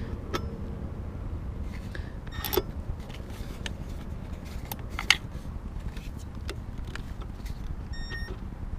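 Scattered light metallic clicks and clinks of hand tools on the small bolts of a motorcycle's regulator guard, over a steady low hum. A short, high beep sounds near the end.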